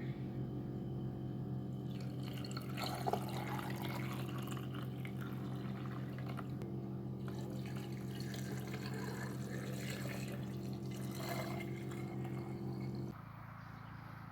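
Water running with a steady low hum under it and small clinks, stopping suddenly about a second before the end.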